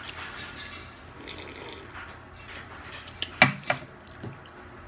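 Sipping from a glass of iced drink, with liquid sounds, then a few sharp clinks of ice and glass about three seconds in as the glass is handled and set down.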